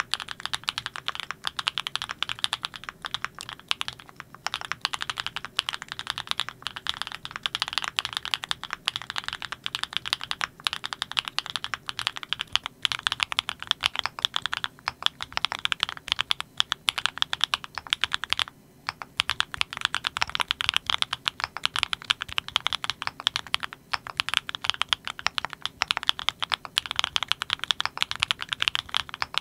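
Continuous fast typing on a Klein Mont Cervin custom mechanical keyboard with factory-lubed Kinetic Labs Candy Vanilla switches: a dense run of keystroke clacks with a brief pause about two-thirds of the way through.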